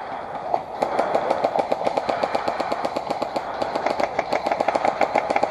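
Airsoft guns firing on full auto: a long, rapid, even stream of shots, running almost without a break.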